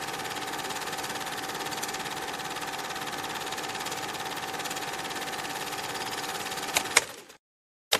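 Steady whirring clatter of a running cine film projector, with a constant whine. About seven seconds in come two sharp clicks, then the sound cuts out completely for most of a second before it resumes.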